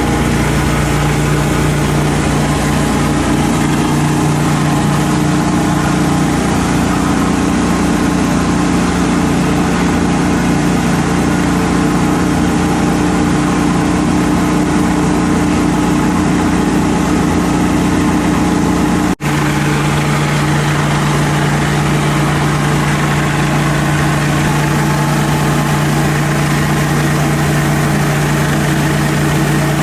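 Pressure washer's engine running steadily at full speed, with a hiss of spray over it. The sound breaks off for an instant about two-thirds of the way through.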